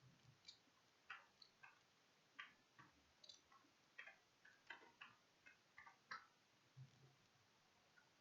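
Faint, irregular clicking of computer keys and mouse buttons, about twenty short clicks spread over six seconds.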